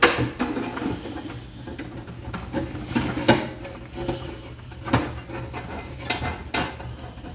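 Scattered small metallic clicks, taps and clinks from working a Phillips screwdriver on the screws of a cassette deck's sheet-metal case, with cloth rustling close by.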